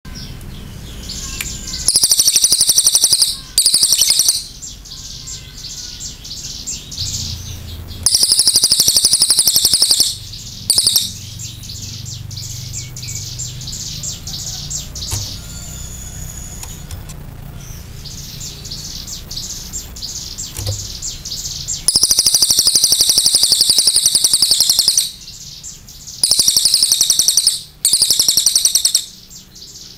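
Crested jay (cililin) singing loud, rapid trills in seven bursts of up to about three seconds each, with quieter gaps between them.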